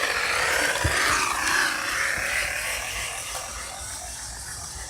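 Air rushing out with a buzzing hiss that fades over about three seconds; the children liken it to a motorcycle.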